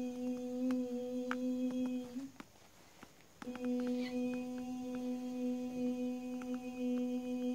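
A woman humming one long steady note, breaking off with a slight upward bend about two seconds in, pausing for a breath, and taking the same note up again about a second later.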